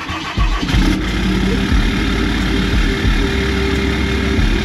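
Ram 5500's Cummins turbo-diesel engine starting from cold, catching about half a second in and then running at a steady, rumbling idle, heard close to the tailpipe.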